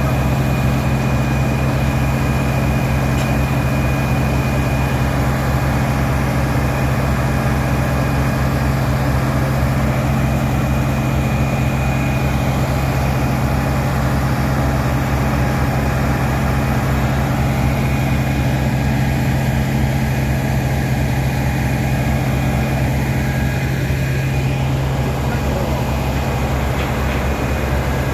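A large engine running steadily with a constant low drone.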